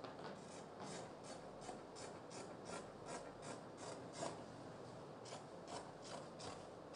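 Dressmaking scissors snipping through folded wax-print fabric in a steady run of faint cuts, about three a second, as a marked curved piece is trimmed out.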